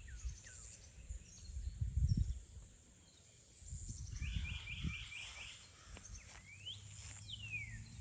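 Songbirds singing outdoors: a quick run of about five repeated notes and several falling slurred whistles, with a low rumble on the microphone that is loudest about two seconds in.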